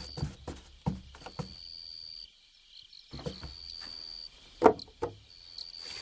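Soft knocks a few times a second, with one louder knock near the five-second mark and a near-silent break about two seconds in, over a steady high trill that comes and goes.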